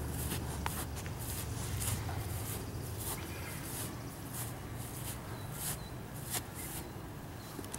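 Footsteps swishing through grass at a walking pace, over a low steady rumble, with a knock at the very end.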